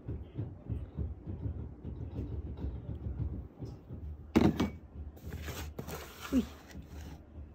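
Soft, rhythmic crunching of a cat chewing dry kibble, about four bites a second. About four seconds in comes a loud thump, then a few seconds of rustling and handling noise.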